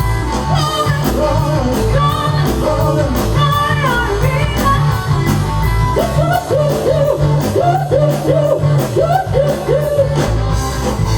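Live rock band with drums, bass and electric guitar playing at full volume to a quick, steady beat, with singing over it.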